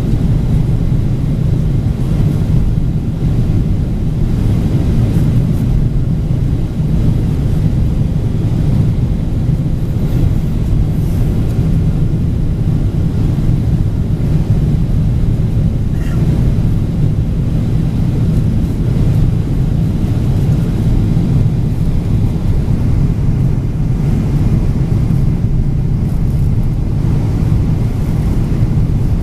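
Jet airliner cabin noise on the approach to landing: a steady, loud low rumble of engines and airflow, unchanging throughout.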